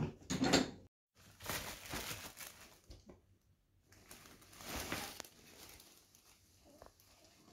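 Bursts of rustling and crinkling noise, in two stretches of a second or more each.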